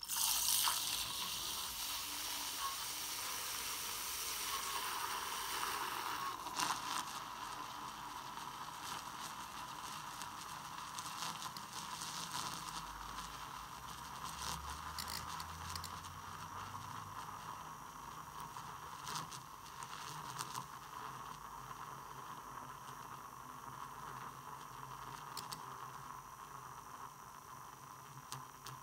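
NanoFoamer handheld battery milk frother whisking pre-heated whole milk in a steel pitcher: a steady motor whine over hissing, with scattered crackles as it draws air into the milk. The sound switches on suddenly, is loudest for the first several seconds, then settles a little quieter as the milk turns smooth.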